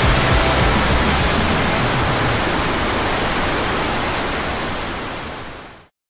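Steady rushing of water pouring over a dam's weir into churning foam, fading out to silence near the end.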